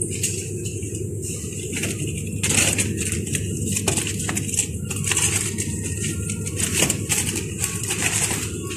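Supermarket ambience: a steady low hum with irregular crackling and rustling throughout.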